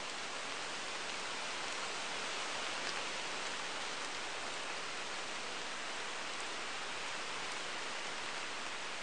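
Steady rain falling on woodland foliage: an even hiss with a faint drip or two.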